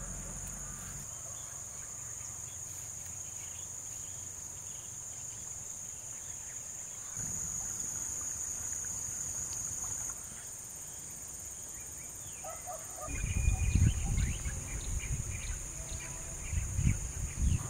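A steady, high-pitched drone of insects, louder for a few seconds in the middle. In the last few seconds, irregular low rumbling bumps come in over it.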